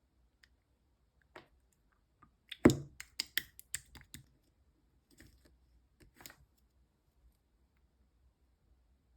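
Konjac jelly slime being pressed and squeezed by hand, giving a run of wet clicks and pops. The loudest pop comes between two and three seconds in, and a few softer clicks follow later.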